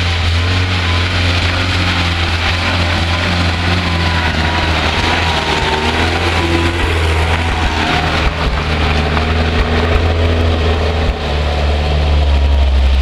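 UAZ-469 4x4's engine running steadily under load as the vehicle crawls slowly up a steep muddy track. It grows louder near the end.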